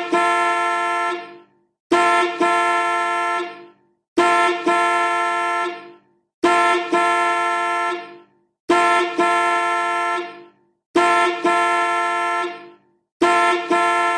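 Car horn sounding in repeated blasts, about one every two seconds. Each blast opens with a quick tap, then holds for about a second and a half before fading out.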